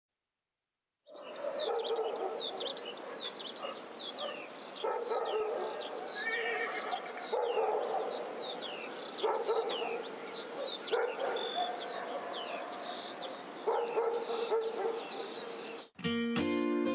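A dog barking and yipping every second or two over many quick, high, falling chirps. An acoustic guitar tune starts just before the end.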